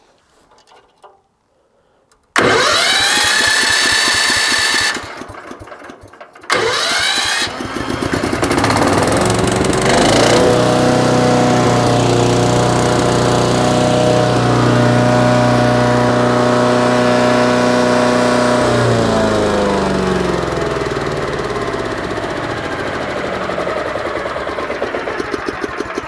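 A 14 hp Forest Master wood chipper's petrol engine started about two seconds in: it fires and rises in pitch, falters for a moment, catches again and runs steadily at speed with the chipper turning, then its pitch drops near the end as it slows to a lower, even running. It runs nicely: the first start after assembly, oil and fuel.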